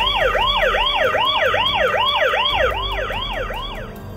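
Toy police car's electronic siren, a fast yelping rise-and-fall, about two and a half cycles a second, triggered by pressing the light bar on its roof; it stops near the end.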